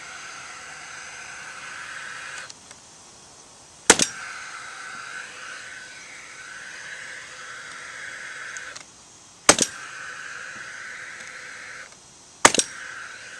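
Power nailer firing three times, a few seconds apart, each shot a sharp double crack. A steady high hum runs underneath and cuts out shortly before each shot.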